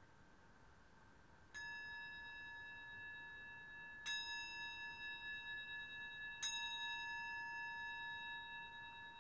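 Brass singing bowl struck three times with a wooden striker, about two and a half seconds apart, each strike leaving a long, pulsing ring of several pitches that carries over into the next.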